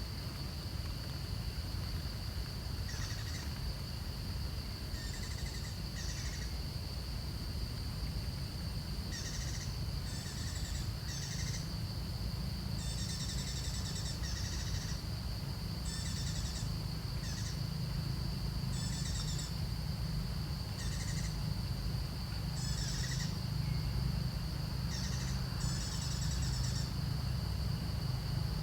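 Outdoor animal sounds: short, high chirping calls repeating irregularly every second or two over a steady high insect-like drone and a low rumble.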